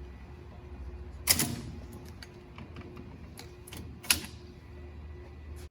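Metal wishbones being pulled out of a rotisserie oven rack, giving a few sharp metallic clanks and clicks, the loudest about a second in and another about four seconds in. A steady low hum runs underneath.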